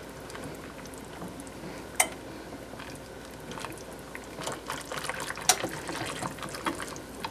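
A red silicone-coated whisk stirring a thick cheese sauce in a stainless steel saucepan: wet swishing with light clicks of the whisk against the pan, busier in the second half, and a sharper tap about two seconds in and another past the middle.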